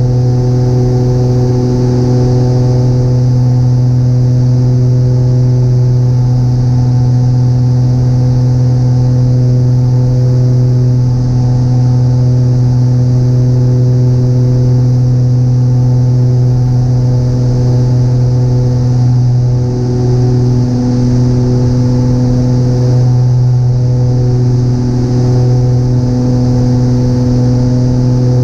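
Twin propeller engines of a light twin airplane droning steadily, heard inside the cockpit: a constant low hum with a ladder of steady tones above it.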